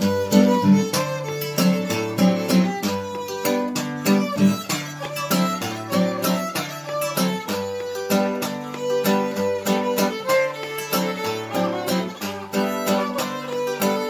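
Acoustic guitar strummed in a steady rhythm while a violin plays the melody over it, without singing.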